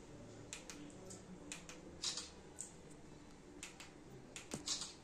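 Faint, irregular clicks and light taps from handling an extended telescopic selfie stick, with slightly louder knocks about two seconds in and again near the end.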